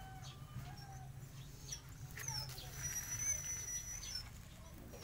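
Puppies whimpering with thin, high-pitched whines, the longest held for about two seconds near the middle, over a steady low hum.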